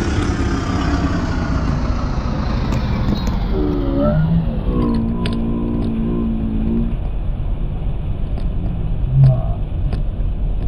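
Steady rumble of engine and road noise from inside a moving vehicle on a concrete road. A held tone with several pitches sounds for about two seconds midway through.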